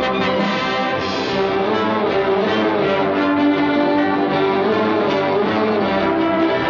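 Orchestral title music for a cartoon, led by brass with trombones and trumpets, playing loud and steady.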